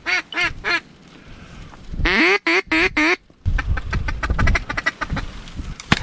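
Mallard-style duck quacking: a run of loud quacks falling away in cadence, a second burst of quacks about two seconds in, then a fast chatter of short clipped notes like a feeding call. A sharp click comes near the end.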